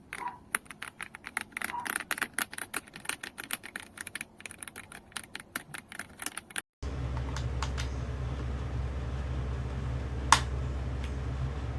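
Fast, clattering typing on an AULA F87 mechanical keyboard for about six and a half seconds. It cuts off abruptly and a steady low hum takes over, with a few scattered clicks and one sharp click near the end.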